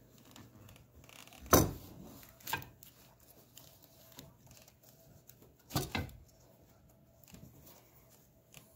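Knocks and clicks of a roof-rack bracket and its bolts being handled and fitted onto a Jeep hard top: one sharp knock about a second and a half in, a lighter one a second later, and a quick double knock around six seconds.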